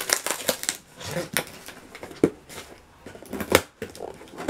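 Scissors cutting open the packing tape on a cardboard shipping box: irregular sharp snips and scrapes, with a few louder ones.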